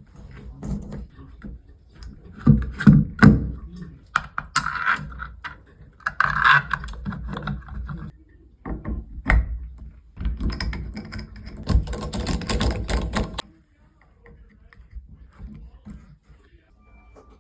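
Tools and shower valve parts being handled during a shower cartridge replacement: irregular clicks, knocks and clatter, the loudest knocks a few seconds in, with a denser stretch of rattling about ten seconds in that stops suddenly after about three seconds.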